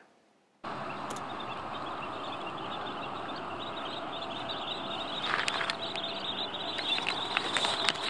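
Flock of American avocets and dowitchers in flight, many short high calls overlapping into a constant chatter over a steady rush of background noise. It starts after a half-second gap and grows louder about five seconds in.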